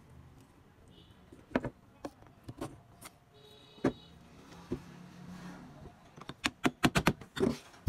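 Scattered clicks and knocks of a metal pick and hands working at the copper windings of an alternator stator, with a quick cluster of taps near the end.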